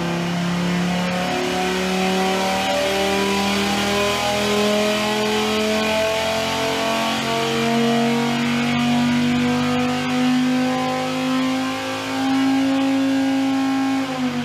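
Prefix 9.0-litre (550 ci) stroker Viper V10 running under load on an engine dyno in a power pull. Its note climbs steadily in pitch for about fourteen seconds, then falls off sharply at the end.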